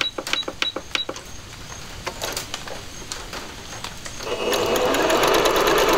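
Singer Patchwork 7285Q sewing machine: a few quick clicks with short high beeps as a stitch is keyed in, then about four seconds in the machine starts stitching and runs steadily and quietly.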